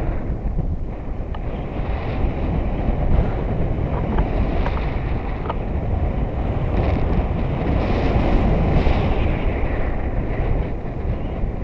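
Wind buffeting the microphone of a selfie-stick camera in flight on a tandem paraglider: a loud, steady, deep rushing noise.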